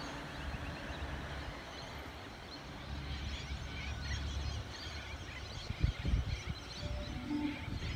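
Outdoor ambience: a low rumble like wind on the microphone, gusting about six seconds in, with birds chirping faintly.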